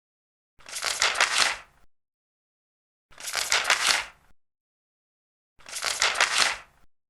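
A large paper page being turned, three times, each turn a crisp rustle with crackling lasting about a second, with a pause of complete silence between them.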